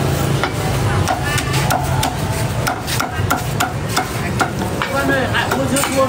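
Cleaver chopping roast meat on a thick wooden chopping block, a fast, irregular run of sharp chops.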